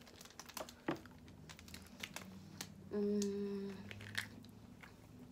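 Small cracks and clicks of snow crab shell being picked apart by hand, with close-up chewing. About three seconds in, a short hummed "mm" with the mouth closed.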